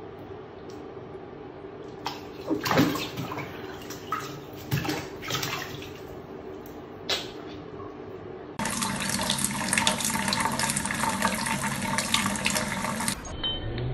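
Bathtub water splashing several times as a cat paws at a floating bottle cap. Then a kitchen tap runs in a steady hissing stream for the last few seconds while a cat drinks from it.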